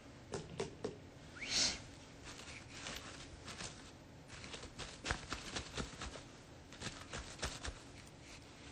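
Faint handling noise: scattered small clicks and rustles of a phone being held and a sweatshirt's fabric moving, with one short, louder breath about one and a half seconds in.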